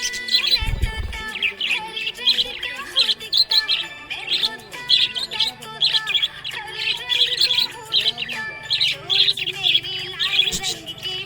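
A budgie (budgerigar) chirping and warbling in a quick, continuous chatter of high chirps. There is a short low thump about a second in.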